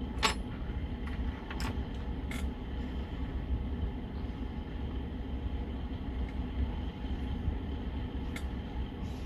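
A few light clicks and taps from small motor parts being handled on a workbench, over a steady low room hum.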